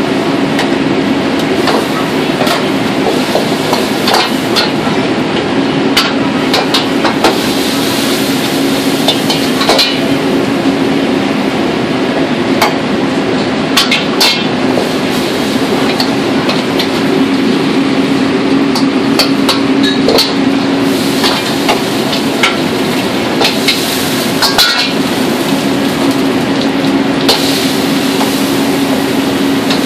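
Restaurant wok range running: the steady rush of high-output gas burners under several woks with a constant low hum, broken by frequent sharp metallic clanks of a steel ladle striking and scraping the woks during stir-frying.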